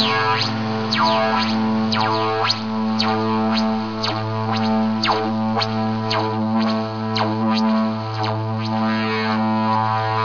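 Droning music: a steady low drone with bright overtones sweeping up and down about twice a second.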